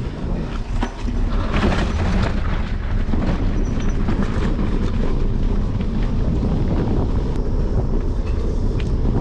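Bicycle riding over bumpy dirt single track: a steady rumble of tyres and air on the microphone, with rattling clicks and knocks as the bike jolts over the trail, thickest in the first few seconds.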